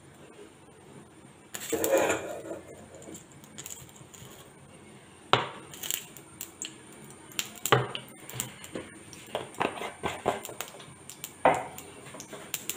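Kitchen utensils clinking and knocking against a metal pan on a gas stove while coconut oil is poured in, with a short rushing noise about two seconds in and sharp knocks scattered through the rest.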